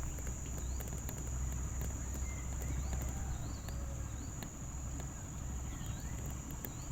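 A steady high-pitched insect drone, with scattered short bird chirps and a low steady rumble underneath.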